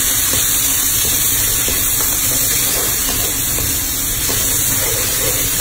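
Chopped tomatoes sizzling in hot oil in a frying pan: a steady hiss, with a low rumble underneath.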